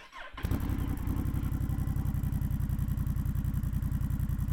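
2022 Honda Rebel 1100's parallel-twin engine starting through a Coffman's Thunder aftermarket exhaust. It catches suddenly about half a second in and settles straight into a steady idle with an even, rapid exhaust pulse.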